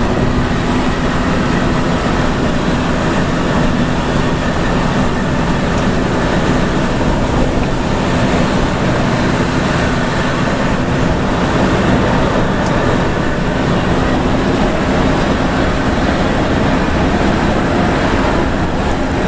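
Inside a moving bus's cab at cruising speed: steady engine drone under a constant hiss of tyres on a rain-wet highway.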